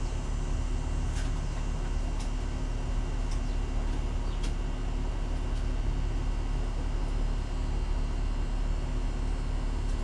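Steady low rumble and hum of background machinery, unchanging throughout, with a few faint clicks in the first half.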